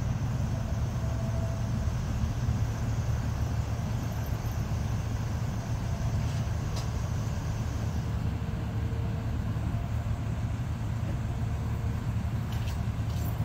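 Steady low rumble of a motor vehicle, even in level throughout.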